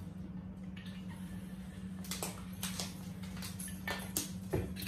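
Kitchen room tone with a steady low hum, broken by a scattered series of short, light clicks and taps from things being handled at the table.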